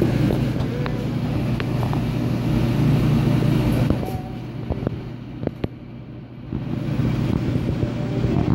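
Steady low hum and general background noise of a restaurant dining room, with a few light clicks. The sound drops quieter and duller for about two seconds past the middle, then comes back.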